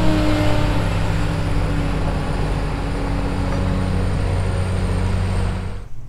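Pickup truck engine running with road noise, heard from inside the cab while driving, its pitch easing slightly lower; the sound cuts off abruptly near the end.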